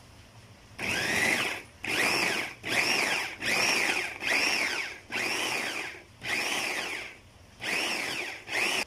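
Small push-button electric food chopper run in about eight short pulses, each a motor whine that rises and falls as it spins up and stops, grinding chilies, onion leaves and ginger into a coarse paste.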